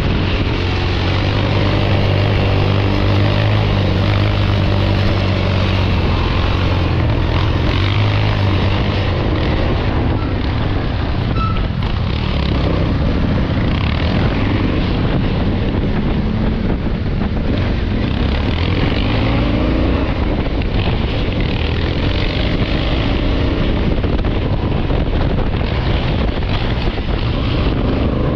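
Motorcycle engine running under way, with heavy wind noise on the microphone. The engine note holds steady for the first several seconds, then wavers, and rises in pitch a couple of times about two-thirds of the way through.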